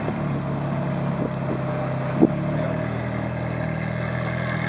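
Ferrari F430 Spider's V8 engine running at low revs as the car creeps past, a steady, even note that rises a little just after the start. A single sharp click about two seconds in.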